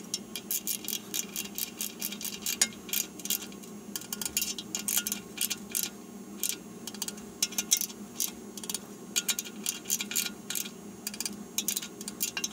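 Socket ratchet clicking in quick runs, stroke after stroke, as it runs the bolts down on a tractor transmission's bearing retainer cap.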